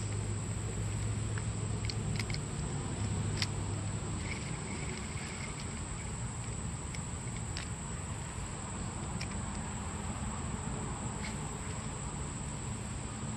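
Insects droning steadily at a high pitch in the woods, with a few faint scattered clicks over a soft outdoor background.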